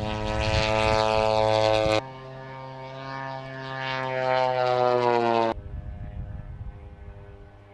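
Propeller engine of a large radio-controlled model airplane flying past, its pitch falling as it goes by. The sound is cut off abruptly twice, about two seconds in and about five and a half seconds in, then fades away.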